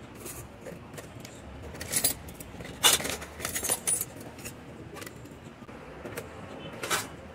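Sheet-metal drive brackets and other scrap electronic parts clinking and rattling as they are handled and picked through in a plastic tub. There are several sharp clanks, the loudest about three seconds in and another near the end.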